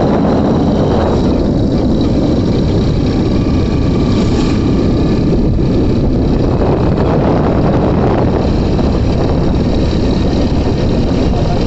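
Hero HF Deluxe motorcycle's single-cylinder four-stroke engine running steadily under way while burning hand sanitizer (70% alcohol) in place of petrol, with wind noise on the microphone at riding speed.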